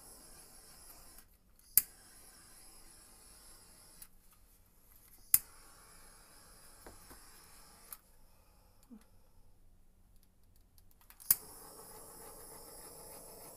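Small handheld craft torch being lit with three sharp igniter clicks. Each click is followed by a steady hiss of flame for a couple of seconds, and after the last one, near the end, the flame keeps hissing as it plays over the wet pour paint.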